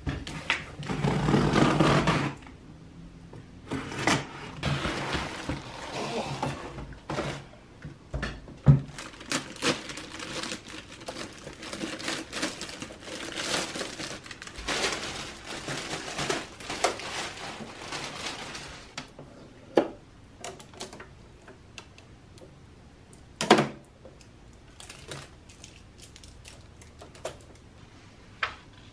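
Plastic bag and packaging rustling and crinkling as a new sewing machine is unwrapped, loudest in the first couple of seconds, with a few sharp knocks as things are set on the desk. It grows quieter about two-thirds of the way through, leaving lighter handling sounds and a couple more knocks.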